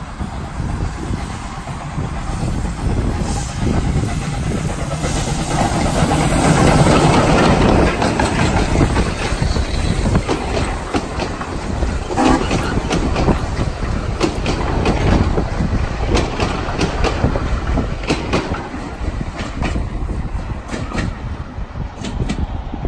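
Rx-class steam locomotive and its passenger carriages passing close by at low speed, loudest about six to eight seconds in as the engine goes past. The carriage wheels then click in rhythm over the rail joints, fading near the end as the train draws away.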